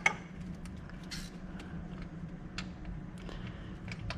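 A ratchet wrench worked in short strokes on a starter mounting bolt in a cramped engine bay: irregular metallic clicks and light knocks, a sharp click at the start and a brief scrape about a second in, over a steady low hum.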